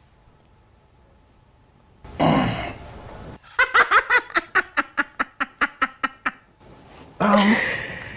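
A person's laughter: a loud falling vocal outburst about two seconds in, then a run of about fourteen short 'ha' pulses at about five a second that fade away, and another loud vocal outburst near the end.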